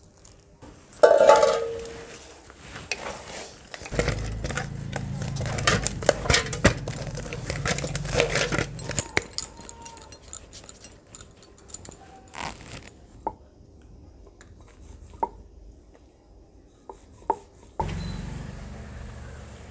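Steel utensils clanking and scraping while spinach dough is kneaded in a steel plate, with one loud clang about a second in. Near the end, a ball of green puri dough sizzles as it goes into hot oil in a clay pot.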